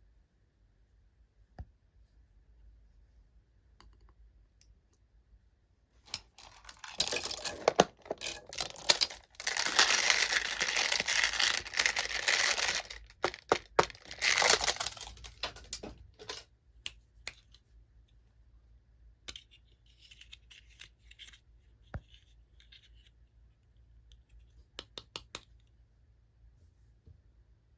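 Packaging being torn open and crinkled by hand, a dense rustling tear that starts about seven seconds in and runs for several seconds with sharp clicks, then a few lighter crinkles and clicks as the wrapping is handled.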